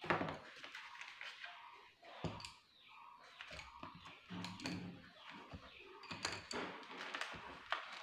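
Sheets of paper being handled and rustled on a desk, with scattered light knocks and thunks as things are moved about.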